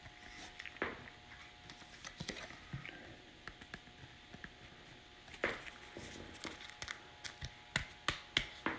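Handling a trading card in plastic holders: a soft plastic sleeve crinkling and a rigid plastic toploader being slid over the card, with light scattered taps and clicks and a few sharper clicks near the end.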